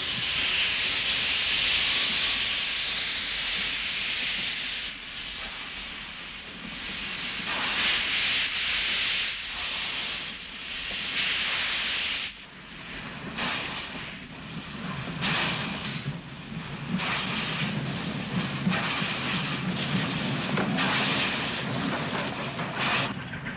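A steam locomotive, SNCF class 230 B, venting steam in a loud steady hiss from its cylinder cocks. About halfway through, the hiss gives way to a run of uneven chuffs over a low rumble as the engine works.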